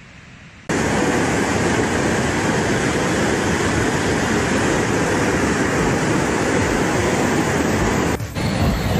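Floodwater of a swollen river rushing past in a fast, turbulent torrent: a loud, steady rushing noise that starts suddenly about a second in and breaks briefly near the end.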